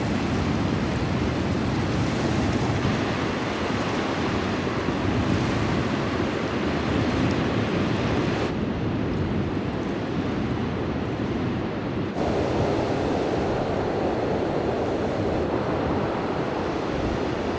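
Pickup truck driving: a steady rumble of road and engine noise, shifting in tone about eight and twelve seconds in.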